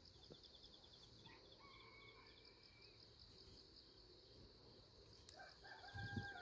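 Faint rural background of insects chirping in a steady fast pulse, with a faint chicken call about a second in and a longer, held call near the end that falls off at its close.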